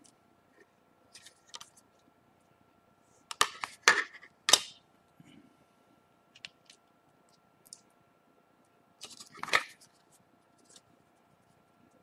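Small phone parts and tools being handled on a work surface: scattered light clicks and taps, with two louder bursts of clattering, one about three and a half seconds in and another around nine and a half seconds.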